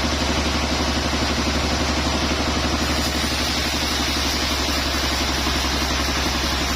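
A sawmill's engine running steadily at an even speed, with a rapid regular beat.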